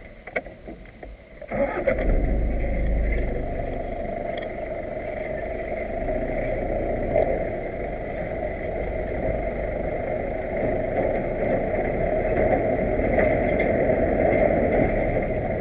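A vehicle engine starts about a second and a half in and then keeps running steadily.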